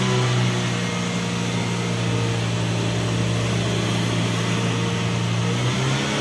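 Ford Figo car engine running at steady revs with the accelerator held, the car stationary in neutral; the engine note holds one even pitch and wavers slightly near the end.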